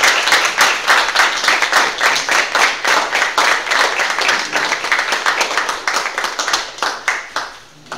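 Audience applauding with steady, dense hand-clapping that thins out and dies away near the end.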